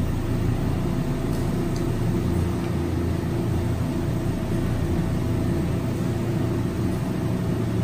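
Glassblowing bench torch flame burning with a steady roar, over a constant low hum.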